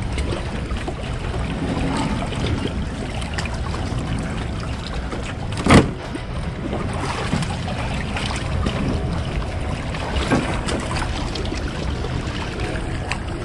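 Steady wind noise on the microphone over lapping water, with one sharp knock a little before halfway through and a fainter one about three-quarters of the way through.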